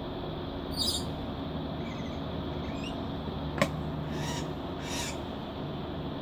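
Induction cooker running on its 1400 watt setting with a steady low hum, powering a kettle through a bifilar pancake coil. A single sharp click comes about three and a half seconds in, and a few faint bird chirps sound early on.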